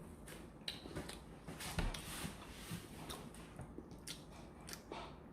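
A person chewing and eating close to the microphone: irregular wet smacking and small clicks of the mouth, with a short noisier mouthful about two seconds in.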